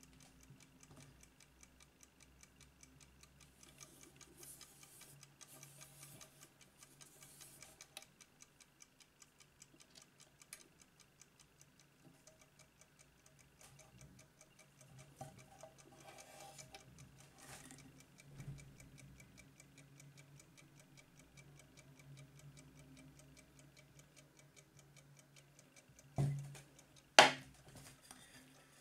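Key-wound mechanical movement of a Soviet submarine wall clock ticking steadily and rapidly, with light handling rustles. Near the end two loud sharp clacks as the hinged chrome glass bezel is swung shut onto the metal case.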